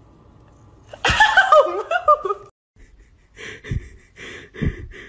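A woman laughing in a high, squealing burst that starts about a second in and lasts about a second and a half, then a run of short breathy sounds.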